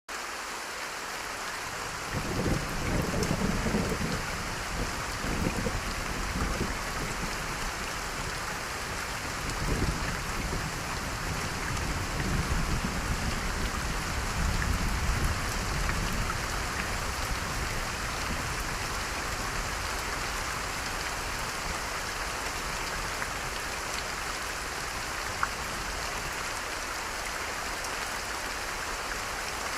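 Steady rain falling, an even hiss throughout. Deep rumbles swell and fade several times in the first half, then die away, leaving only the rain.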